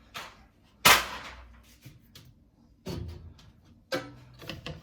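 A sharp knock of plastic ice maker parts striking each other about a second in, followed by quieter knocks and handling noise as the unit is pulled apart.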